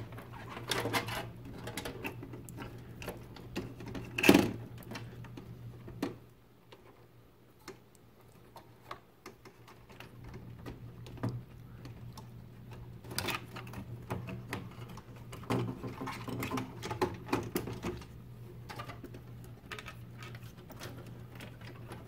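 Irregular clicks, taps and knocks as a motherboard and its cables are handled and shifted inside a metal PC case, with one louder knock about four seconds in. A low steady hum runs underneath.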